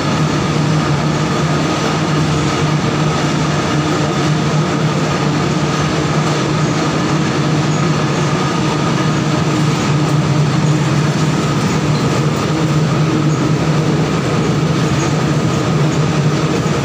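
Mustard oil expeller presses running in a mill: a loud, steady mechanical drone with a constant low hum and a fainter high whine.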